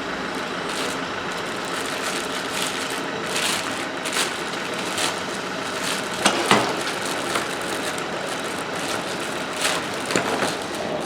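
Steady mechanical drone of a working garage with scattered light clicks, and two sharper knocks about six seconds in as parts are handled.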